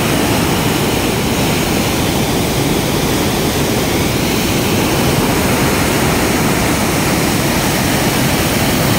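Ambika River in flood, fast brown water churning against a bridge: a loud, steady rushing roar.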